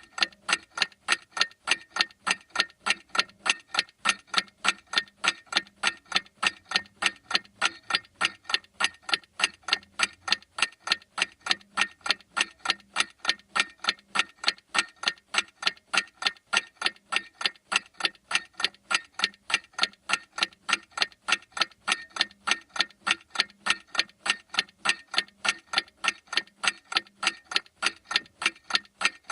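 Clock ticking steadily, with sharp, evenly spaced ticks, about two a second.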